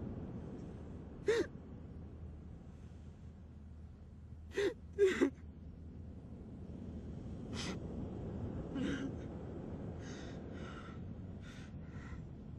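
A man sobbing and gasping for breath. Sharp, catching gasps come about a second in and twice in quick succession around five seconds, followed by softer, breathy sobs near the end.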